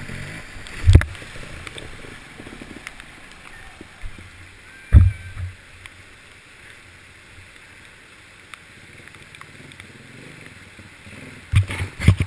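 Rushing water of a swollen stream around a trials motorcycle being worked through it, with a few loud, sudden thumps about a second in, about five seconds in, and twice near the end.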